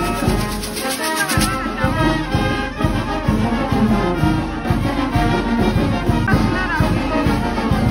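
Brass band playing, with trumpets and trombones holding melody notes over a steady drum beat.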